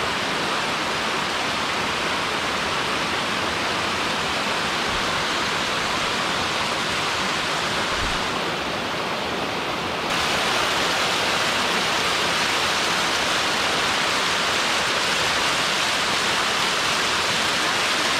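Water rushing down a sloping waterfall over rock slabs in a mountain stream, a steady hiss that gets louder and brighter about ten seconds in.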